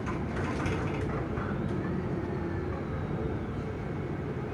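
Steady running noise of a city bus heard from inside the cabin: an even engine and road rumble.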